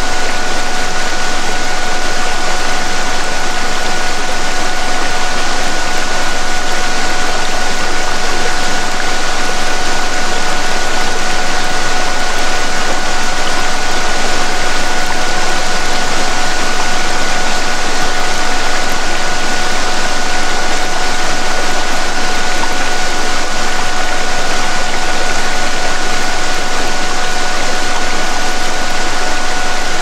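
Waterfall sound, a steady, unbroken rush, with a continuous pure tone and its octave held beneath it: a 'DNA repair' healing frequency for headphone listening.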